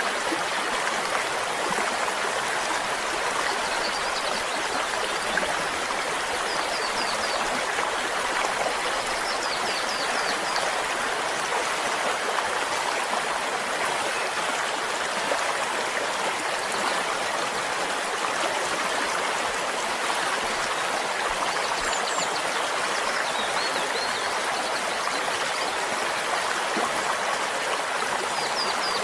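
Flowing stream: a steady, even rush and babble of running water that never lets up, with a few faint high chirps now and then.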